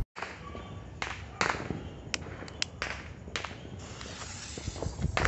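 A long-nosed lighter clicking several times at the fuse of a 16-shot aerial firework cake, then the fuse catching and hissing as it throws sparks from nearly four seconds in.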